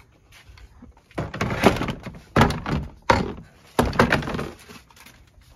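Hard knocks and thuds, about five over three seconds, the loudest about a second and a half in: objects being shifted and set down.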